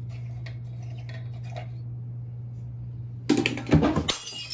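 A steady low hum with a few faint ticks, then near the end a sudden loud clatter of glass: a compact fluorescent (CFL) light bulb dropping and shattering.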